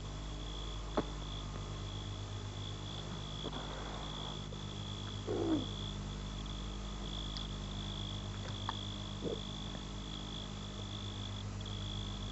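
Crickets trilling steadily at one high pitch, over a low electrical hum, with a few soft clicks.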